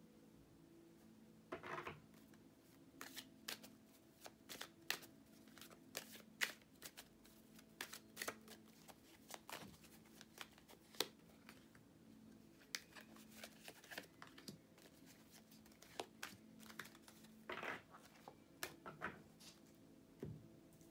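Tarot cards handled on a tabletop as they are picked from the deck and laid out: a quiet run of irregular clicks and snaps, with two longer swishes of card sliding, one about two seconds in and one near the end. A faint steady hum sits underneath.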